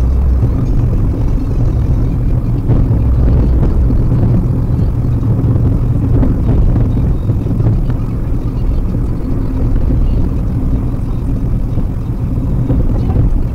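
Steady low rumble of road and engine noise inside a Maruti Suzuki WagonR's cabin while it cruises on a highway.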